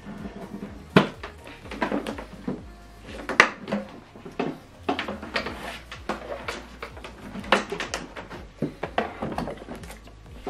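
Irregular knocks, bumps and clatter of a flat-screen TV being handled and turned around on a tabletop.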